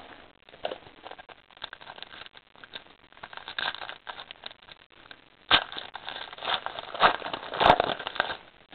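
Trading cards and their foil pack wrapper being handled, giving irregular rustling and crinkling with several louder sharp crackles in the second half.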